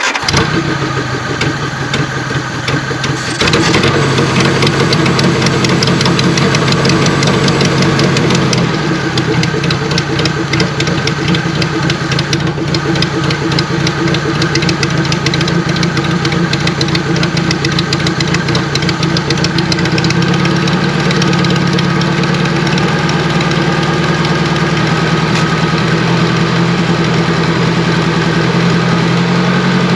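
Nissan 720 pickup's Z24 four-cylinder engine catching as it is cranked, then running continuously on a carburetor that is not super happy. Engine speed rises about three and a half seconds in, drops back near nine seconds, then creeps up slowly from about twenty seconds.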